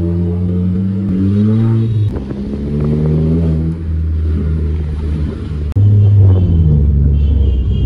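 Volkswagen Vento with a loud exhaust, its engine revving up and dropping back several times. The sound jumps suddenly louder a little under six seconds in.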